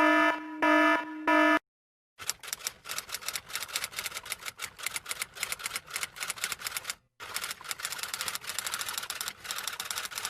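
Rapid typing clatter of typewriter keys: fast, irregular clicks running for several seconds, with one short pause a little past the middle. It is preceded by a short buzzy tone sounding three times.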